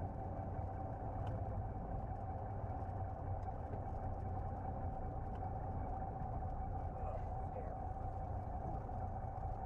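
Single-engine propeller airplane's piston engine running at idle, heard inside the cockpit as a steady drone with a low hum and a constant higher tone, while the plane rolls out on the runway after landing.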